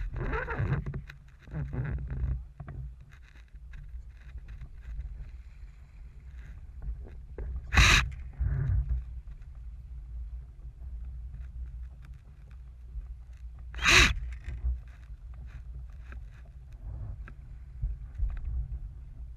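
Water rushing along the hull of a small sailing dinghy under way, mixed with wind buffeting the boat-mounted microphone, making a steady low rumble. Two short, sharp bursts stand out, about eight and fourteen seconds in.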